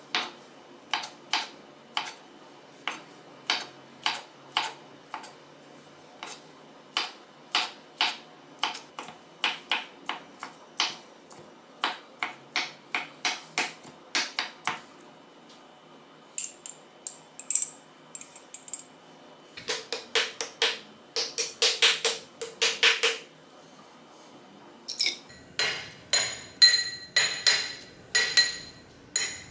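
Chef's knife chopping on a wooden cutting board: steady knocks about twice a second, then a quicker run of mincing strokes. Near the end a metal spoon clinks against a small ceramic dish.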